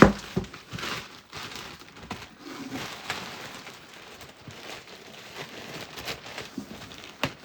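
Cardboard packaging being handled: faint crinkling, rustling and small scattered ticks, with a sharp knock at the start and another sharp click near the end.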